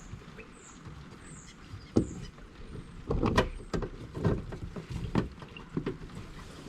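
Irregular knocks and clicks of hands fitting plastic trim and a small screw back into a car's boot lid, the loudest about two and three and a half seconds in. A bird chirps repeatedly, high and faint, over the first couple of seconds.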